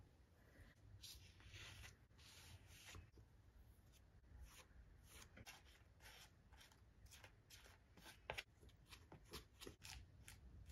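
Faint scraping of a metal palette knife spreading thick paint across a paper journal page, in longer smears at first and then short, quick strokes several times a second.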